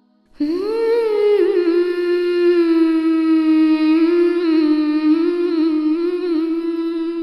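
A voice humming one long held note as background score. The note swoops up at the start, then settles and holds, with small wavering ornaments. It starts about half a second in and fades out at the end.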